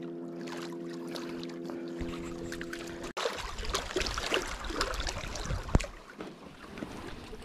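A steady motor hum with an even pitch runs for about three seconds and then cuts off abruptly. After it come irregular water sloshing and small knocks, with one sharp knock a little later.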